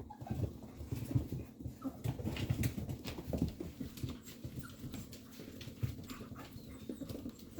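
Bernedoodle puppies scrabbling and shuffling against their mother dog: a run of soft rustles and small knocks, busiest in the first few seconds, with a few faint short whimpers later on.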